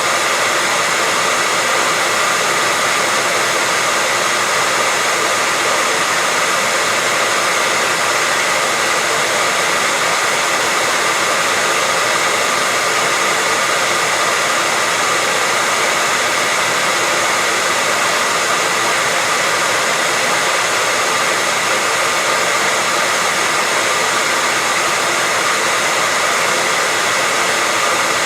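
Hair dryer running steadily: an even rushing of air with a faint high steady whine, used as white noise to lull a baby to sleep.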